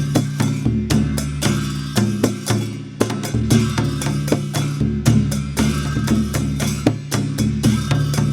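Dhime, the Newar double-headed drum, played in a fast, steady rhythm of many strikes a second over a ringing low drum tone.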